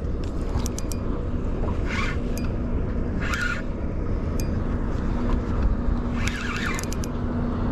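Wind rumble on the microphone over a boat on open water, with a few short splashes as a hooked zander is brought to the landing net beside the boat.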